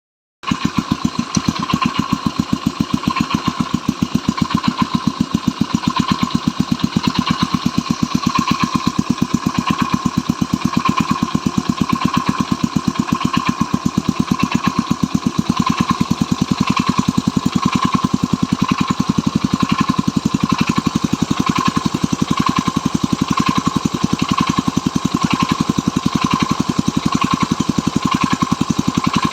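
Stels Capitan moped engine running steadily at idle, with a rhythmic knock repeating about once a second over the engine note. The owner suspects the knock is the chain.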